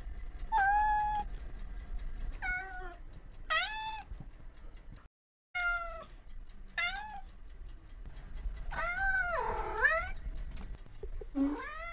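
Cat meowing, about seven separate meows; the longest and loudest comes about nine seconds in, and the last falls in pitch.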